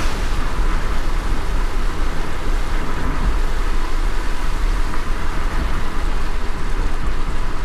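Rain sound effect: rain falling steadily, an even hiss with a constant low rumble underneath.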